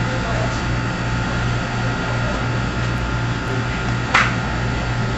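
A steady low mechanical hum under background noise, with one sharp click about four seconds in.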